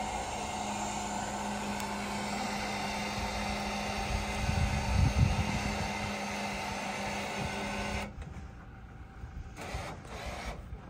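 A steady machine hum with one constant low tone, with a few dull thumps about four to five seconds in. It cuts off abruptly about eight seconds in, leaving a quieter stretch with a few faint clicks.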